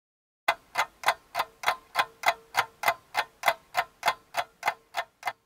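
A clock ticking, sharp and evenly spaced at about three ticks a second, starting about half a second in and growing fainter towards the end.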